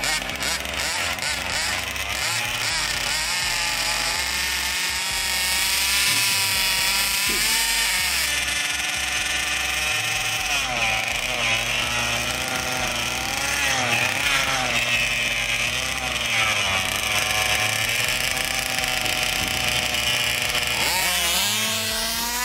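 Small two-stroke engines of two 1/5-scale gas RC cars running at the start line, their pitch wavering as the throttles are blipped. Near the end they rev up sharply as the cars launch.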